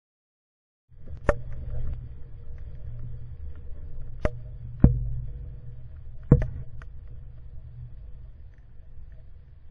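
Underwater sound picked up by a camera in its housing: a steady low rumble with a faint hum. A few sharp clicks or knocks stand out, the loudest about four and six seconds in.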